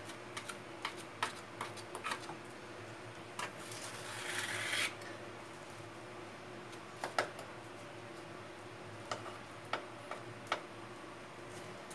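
A small tool working grout paste into the joint between a granite sink counter and wall tiles: scattered light clicks and taps, with a longer scrape about four seconds in. A faint steady hum runs underneath.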